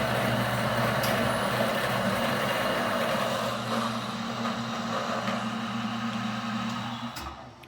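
Bezzera Mitica espresso machine dispensing hot water from its tap, a steady hissing spurt, with the machine's pump humming steadily underneath as the boiler automatically refills. Both stop fairly suddenly about seven seconds in.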